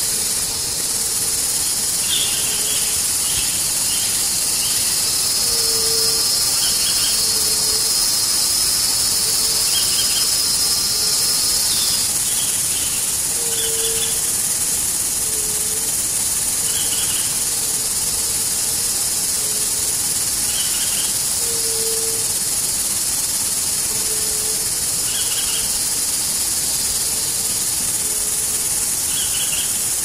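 Loud, steady high-pitched insect chorus, an unbroken shrill hiss. Underneath, short low calls repeat irregularly every second or two.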